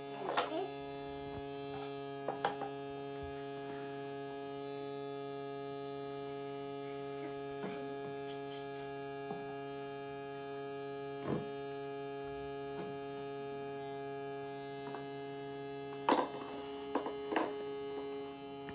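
Small battery-powered water pump of a toy kitchen sink humming steadily while it runs. Now and then there is a light knock of plastic toy dishes, with a few together near the end.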